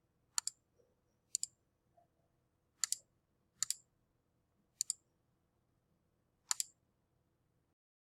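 Computer mouse clicking: six sharp clicks spaced irregularly over several seconds, each a quick pair of snaps.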